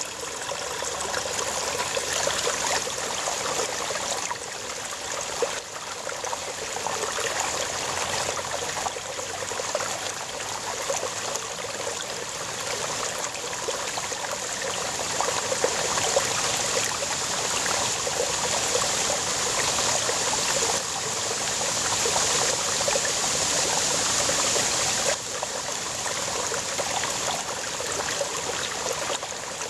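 Small brook babbling over rocks: a steady rush of running water with constant light splashing and trickling.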